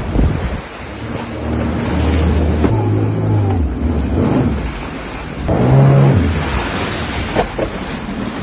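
Sea-Doo personal watercraft engine revving up and down as it churns through a swimming pool, with spraying, sloshing water. The loudest, highest rev comes about five and a half seconds in.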